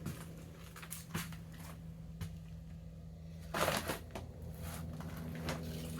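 Faint scuffing and clicking handling noises over a steady low hum, with one short, louder scrape about three and a half seconds in.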